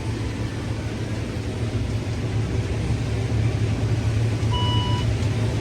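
Combine harvester running steadily, heard from inside the cab as a low hum, with a short electronic beep about four and a half seconds in.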